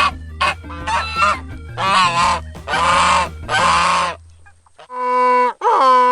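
Geese honking: a run of harsh calls about once a second that stops about four seconds in. Near the end a different animal's long, clear, pitched cry begins.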